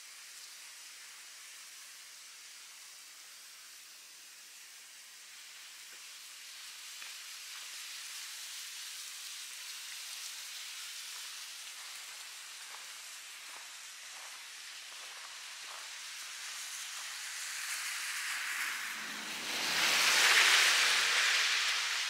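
Steady hiss of a snowy, slushy street in heavy snowfall, with a few faint crunching steps. Near the end a vehicle passes close by, its tyres hissing through slush with a low rumble, swelling to the loudest moment and fading away.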